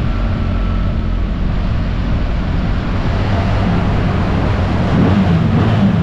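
BMW R 1300 GS boxer-twin motorcycle engine running under way, with wind rushing over the microphone. A little over halfway in, inside a tunnel, the engine note stands out and rises and falls in pitch.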